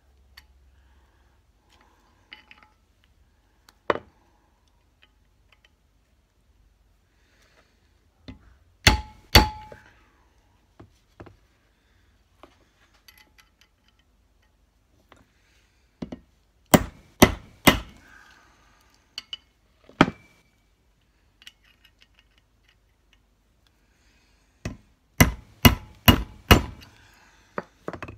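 Hammer striking a pin punch to stake the factory stiff nuts on the BSA A70L Lightning's connecting-rod big-end bolts so they cannot work loose. Sharp metallic taps in small groups: one about four seconds in, a pair near nine seconds, a run of four around sixteen to eighteen seconds, and a quick run of about six near the end.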